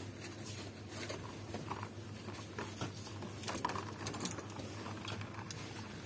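Clear hard-plastic blister tube clicking and rustling in a gloved hand as it is handled and turned, in scattered small knocks, over a low steady hum.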